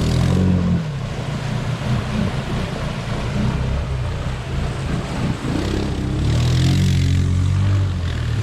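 ATV engine revving and easing off while riding off-road, with a rising surge of engine note about six seconds in that holds for about a second before dropping back.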